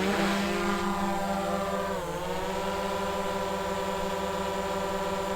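DJI Mavic 2 Pro quadcopter fitted with its original DJI propellers, the motors spinning up and then hovering with a steady many-toned propeller whine. The pitch rises at the start, dips briefly about two seconds in, then settles.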